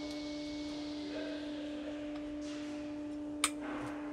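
Steady electrical hum at one pitch, with light handling rustle of wires and one sharp click about three and a half seconds in as a wiring connector is pushed home.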